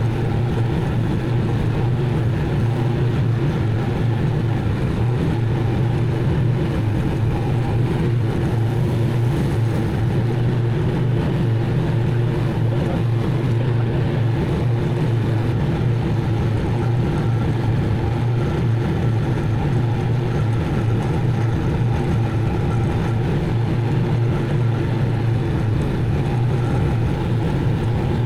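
Zero-turn mower engine running steadily at a constant speed while mowing, a continuous low drone with no change in pitch.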